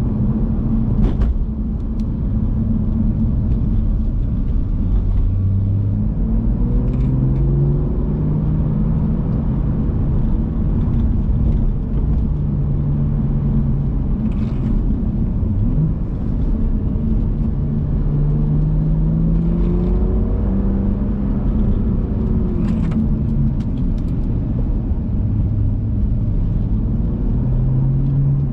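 BMW F87 M2's turbocharged straight-six engine pulling hard through the gears, its note rising in pitch and dropping back several times, with a few short sharp cracks along the way.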